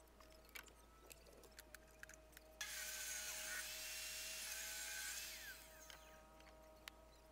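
Faint power drill driving a screw into pallet wood, starting suddenly a few seconds in and running for about three seconds before winding down, with a few light clicks around it.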